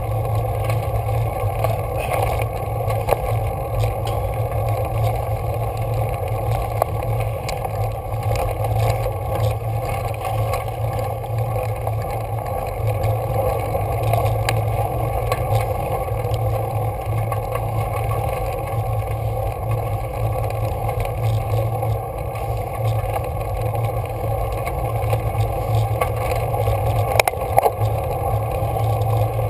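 Steady rumbling noise of a bicycle ride on a rough mountain road, as picked up by a camera on the bike: wind and road vibration on the microphone, with a few faint clicks near the end.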